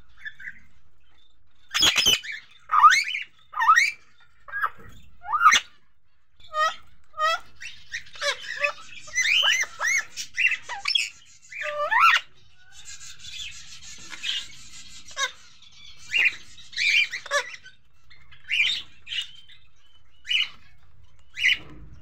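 Indian ringneck parakeet giving a run of short squawks and chirps, with a stretch of busier, faster chattering in the middle.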